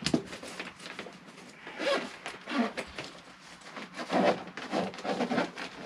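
Zip on a Khyam Biker Plus tent's fabric carry bag being pulled open in several short pulls, with rustling of the bag as it is handled.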